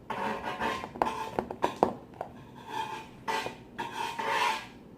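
Spoon stirring and scraping against a bowl while mixing slime, in irregular rubbing strokes, with several sharp clicks of the spoon on the bowl between one and two seconds in.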